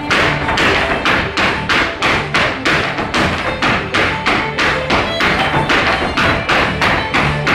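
Irish dancers' hard shoes striking the stage in a fast, even rhythm, about four strikes a second, over live band music.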